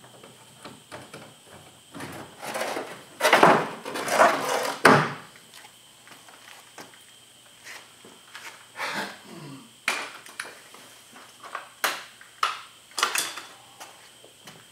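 Hands handling tools and parts: irregular knocks, clicks and clatter, with a louder stretch of rustling and scraping about two to five seconds in.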